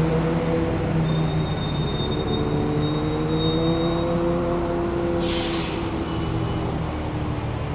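A motor vehicle engine runs and slowly rises in pitch as it pulls away. A short, sharp hiss comes about five seconds in.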